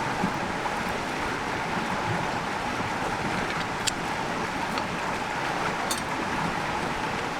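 River water flowing, a steady rushing, with a few brief sharp clicks over it.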